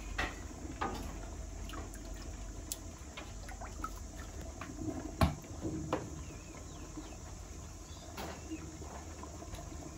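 Rice paper steamer in use: a steady low rumble with watery, steamy noise, and scattered clicks and knocks as the ladle handles batter against the pot and steaming surface, the loudest knock about five seconds in.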